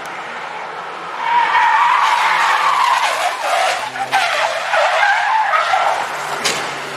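Tyres of a Suzuki hatchback squealing as the car skids wide, losing grip through a corner: a wavering squeal that starts about a second in and fades near the end. Two sharp knocks break in, one about four seconds in and one near the end, and the engine runs low underneath.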